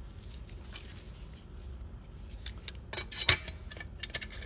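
Metal transmission parts, 4L60E clutch plates, clinking together as they are handled and stacked: a scatter of light clinks, the loudest about three seconds in and a quick run of them near the end.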